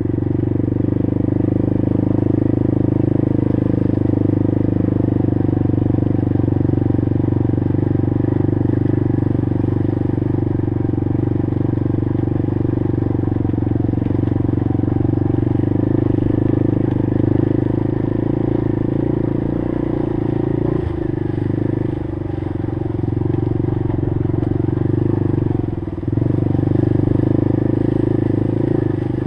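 Honda TRX90 ATV's small single-cylinder four-stroke engine running steadily under throttle while riding a trail, easing off briefly twice in the second half.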